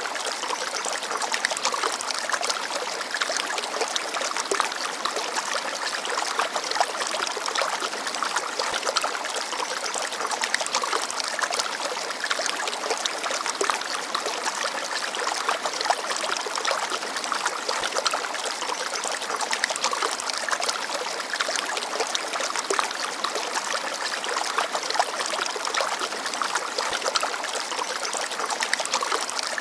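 Shallow forest stream babbling and trickling over rocks: a steady, even rush of water dense with small splashes and gurgles.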